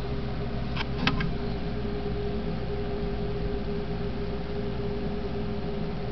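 Steady background hum and hiss with a constant low tone, broken by a few quick clicks about a second in.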